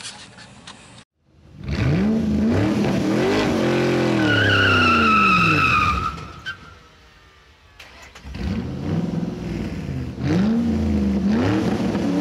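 Car engine revving up and down with the tyres squealing, the sound of a burnout. The first long rev starts about a second in, and a falling tyre squeal runs through its second half. A second rev comes after a short lull, a few seconds before the end.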